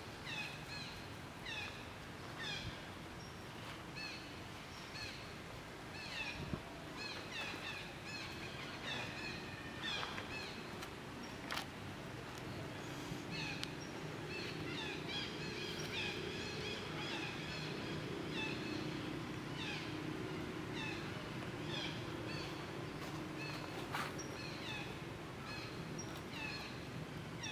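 Infant macaques giving short, high, squeaky calls over and over, each call sliding down in pitch.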